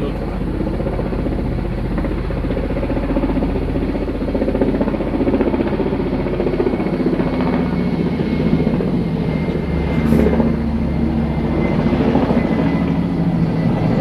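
Firefighting helicopter flying overhead with a water bucket slung beneath it, its rotor beating steadily.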